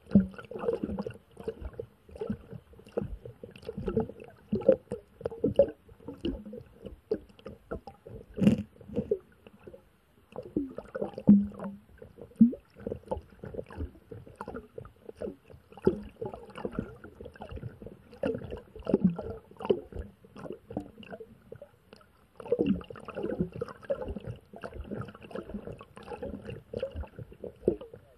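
Muffled gurgling and knocking of water heard through a submerged action camera's waterproof housing: a dense run of short, irregular knocks and gurgles, with brief lulls about ten and twenty-two seconds in.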